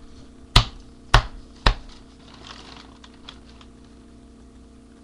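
Three sharp thumps about half a second apart, over a faint steady electrical hum.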